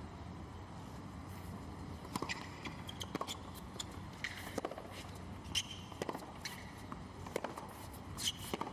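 Tennis rally on a hard court: a string of sharp racket-on-ball hits and ball bounces, starting about two seconds in, with short sneaker squeaks between them, over a steady low stadium hum.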